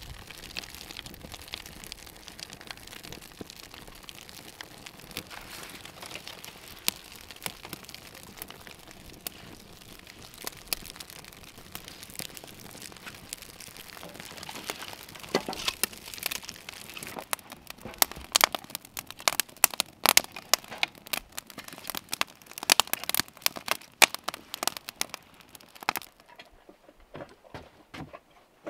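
Kindling fire of paper and wood shavings burning in a steel fire pit, crackling and popping, with the pops coming thicker and louder in the second half before dying away near the end.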